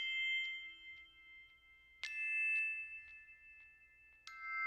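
Three bell-like chime notes struck about two seconds apart, each ringing on and fading.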